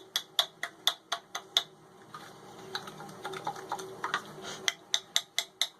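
Rapid light plastic clicks, about four a second, pausing briefly in the middle, as the washer's drain pump impeller is rocked back and forth by hand to check for shaft play; the shaft is loose in a worn bearing.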